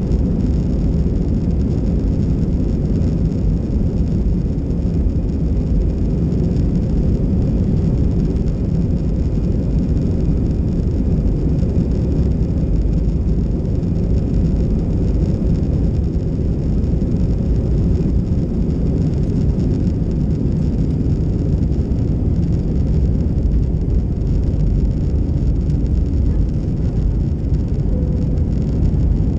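Airbus A320's jet engines at takeoff power, heard inside the cabin as a loud, steady rumble through the takeoff run and initial climb.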